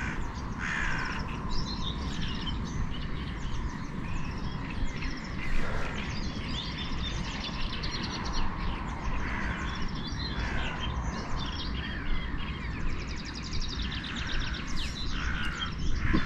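Birds chirping and calling, with many short repeated chirps, over a steady low background rumble.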